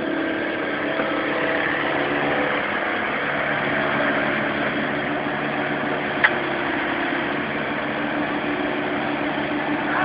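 Mini excavator's diesel engine idling steadily, with one brief click about six seconds in.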